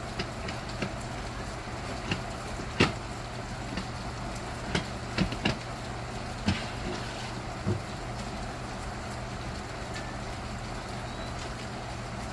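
Steady heavy rain with a low steady hum beneath it, broken by a dozen or so scattered sharp taps, the loudest about three seconds in.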